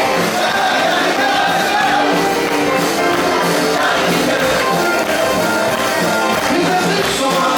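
A live band playing 1950s-style rock and roll, loud and continuous.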